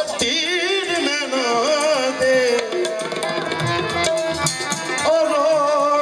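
Live music: tabla drumming under a male singer's wordless, ornamented vocal line, which wavers quickly through the first second or so.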